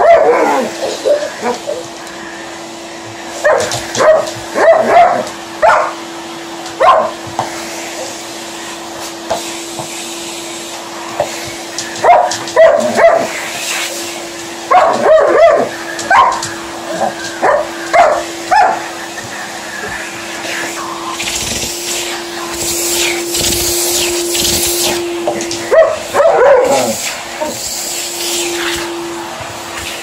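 Vacuum cleaner running with a steady hum while an Alaskan Malamute vocalizes at it in repeated short bursts, with a quieter stretch in the middle.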